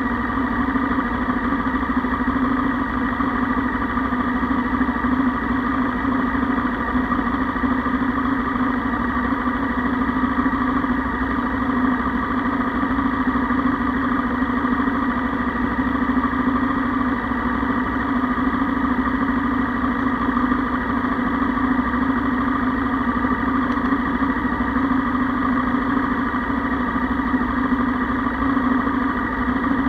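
Motorcycle engine idling steadily with no revving, left running because a fault means it would not restart once switched off.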